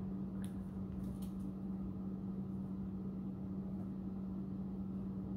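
A steady low hum over a faint room hiss, with two or three faint short ticks about half a second and a second in.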